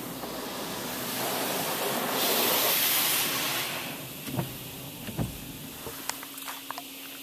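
Pre-soak spray from a Laserwash touchless car wash hitting the car, heard from inside the cabin: a hiss that swells to a peak about two to three seconds in and then fades, followed by a couple of knocks and a few small clicks.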